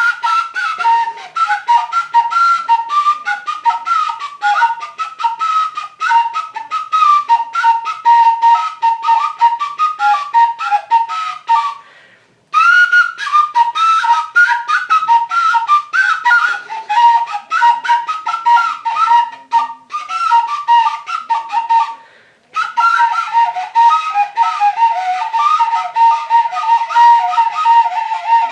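Romanian fluier, a wooden whistle carved from fir, playing a fast, lively tune of quick, ornamented notes, with two brief pauses.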